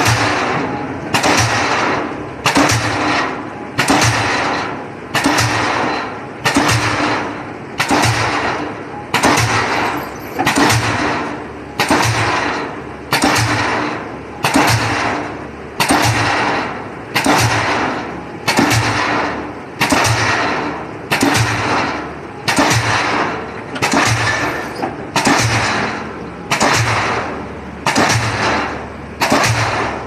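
Pile-driving hammer on a lattice-leader rig pounding a pile in a steady rhythm, a little under one blow a second. Each blow is a sharp bang followed by a short ringing tail.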